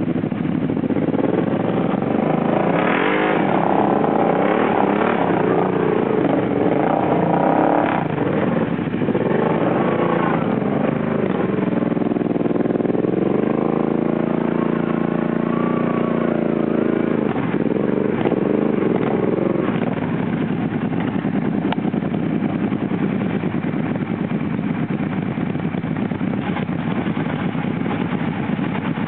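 ATV engine revving up and down over and over while a quad bogged in deep mud is worked free, settling into a steadier run after about twenty seconds.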